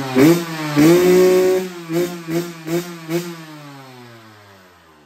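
Yamaha YZ125 two-stroke single-cylinder engine revving in quick throttle blips, held high for about a second, then four short blips. The revs then fall steadily and fade out near the end as the engine winds down. The engine is running well.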